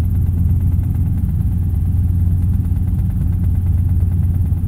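Robinson R22 helicopter in flight, heard from inside the cockpit: the engine and rotor make a steady low drone.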